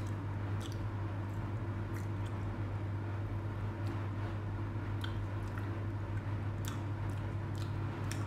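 Chewing soft homemade sponge cake: squishy mouth sounds with a few small, sharp clicks scattered through, over a steady low hum.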